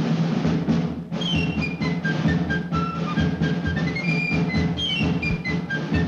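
Orchestral music: a held chord for about a second, then a quick high melody of short notes over a steady low note and an even beat.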